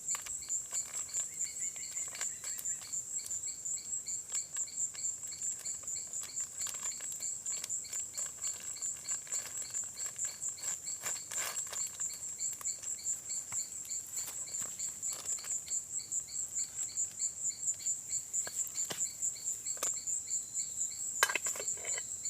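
Insect chirping in a steady, even pulse, about three chirps a second, with a few faint clicks and one louder click near the end.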